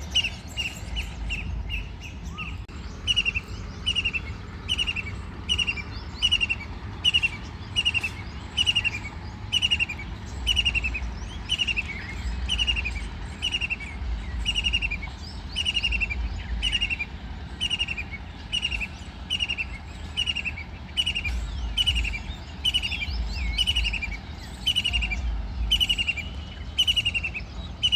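White-throated kingfisher calling: a long, steady series of short, high notes that slide downward, repeated slightly more than once a second.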